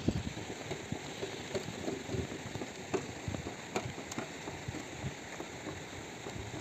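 Pack donkeys' hooves and footsteps on a stony path, an irregular patter of small taps and clicks over a faint outdoor hiss.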